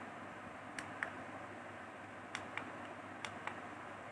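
Small push-button clicks on the strobe light's controls, three times over, each a pair of light clicks about a quarter second apart: a button pressed and released to change the flash mode.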